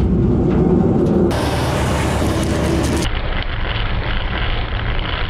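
Threshing machine running loud and steady, its beater drum spinning as mustard is threshed. The sound changes abruptly about a second in and again about three seconds in.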